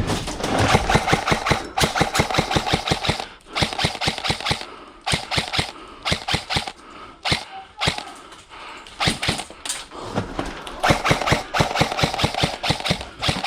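Airsoft guns firing on full auto: several long bursts of rapid clicking shots, about ten a second, with short pauses between them and a steady whine under the fire.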